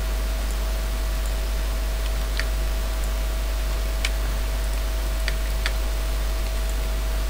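A handful of separate computer keyboard clicks over a steady low electrical hum and hiss, with a faint steady whine.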